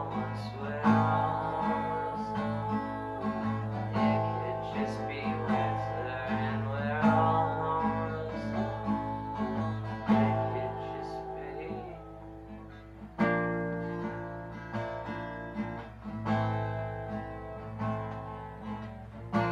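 Acoustic steel-string guitar playing an instrumental passage of a folk song, a steady run of plucked and strummed chords, with a louder chord struck about two-thirds of the way through.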